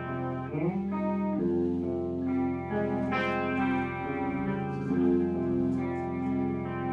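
Background music of sustained guitar chords with effects, the held notes changing every second or so.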